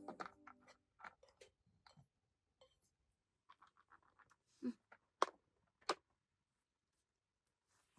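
Background music fading out, then faint, scattered small clicks and light knocks, with two sharper clicks about five and six seconds in.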